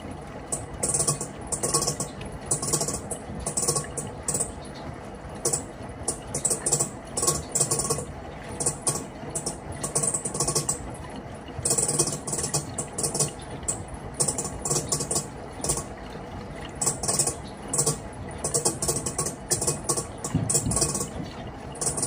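Panasonic washing machine running with a steady hum, overlaid by short rattling, scraping bursts that come irregularly, about one or two a second: the abnormal noise from inside the machine.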